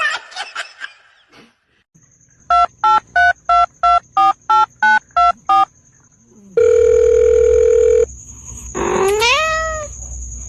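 Ten quick electronic keypad beeps, each a pair of tones, then one steady beep lasting about a second and a half. Near the end comes a short pitched animal cry that rises and then falls.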